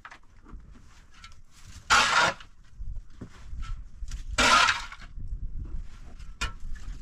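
A shovel scraping into and scooping dry earth, two scraping strokes about two and a half seconds apart, with small knocks of soil and stones between.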